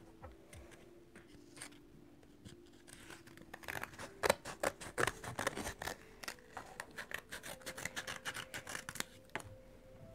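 Small children's scissors snipping through a sheet of paper, a run of short, irregular snips that starts about three seconds in and stops shortly before the end.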